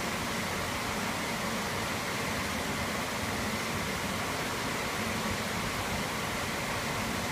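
Steady, even rushing hiss of running water in a fish hatchery's larval incubation system.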